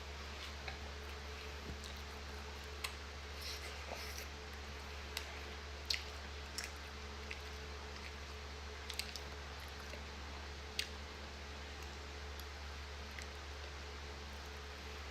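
Person chewing food close to the microphone: scattered wet mouth clicks and smacks, sparser toward the end, over a steady low hum.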